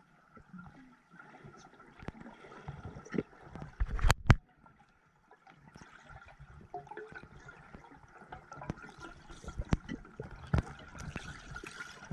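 Underwater sound picked up by a camera below the surface: a watery hiss with bubbling and scattered clicks, and two sharp knocks about four seconds in.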